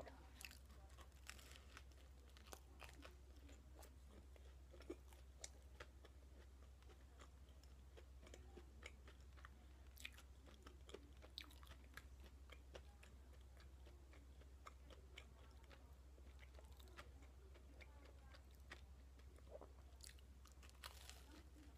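Faint, close-up chewing of toast topped with potato salad: irregular soft crunches of the toasted bread and small mouth clicks, over a steady low hum.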